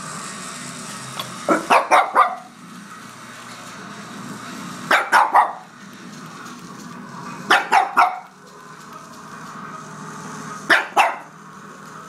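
Pekingese barking in quick bursts of three or four sharp yaps, four bursts about three seconds apart.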